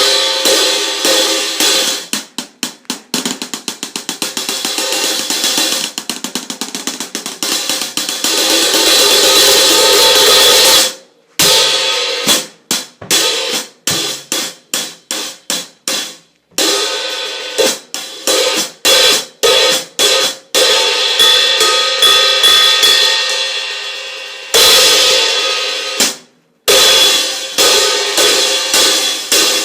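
16-inch Saluda prototype jazz fusion cymbal struck with a stick: runs of quick strikes, several a second, alternate with longer ringing washes. The sound cuts off suddenly three times.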